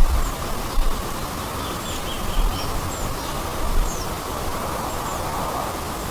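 Forest ambience: a steady rushing noise with low gusts of wind on the microphone, and small birds giving short, faint chirps several times high above it.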